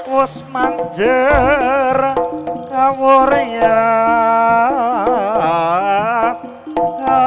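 Live Javanese jaranan music: a pitched lead melody with strong vibrato over held gamelan tones and drum strokes.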